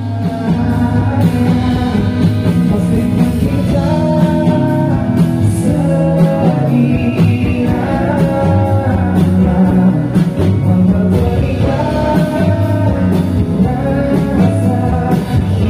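Live rock band with a singer, electric guitars and drums playing a song through an RCF PA system during a soundcheck.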